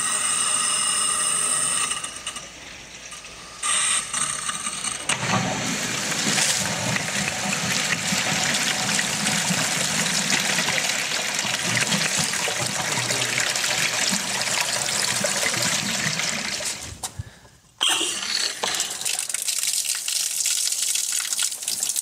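Water rushing out of a braided stainless supply hose into a plastic bucket as air is bled from a freshly plumbed line. A squealing whine sounds for the first two seconds. The flow breaks off about 17 seconds in, followed by water pouring from an outdoor wall spigot.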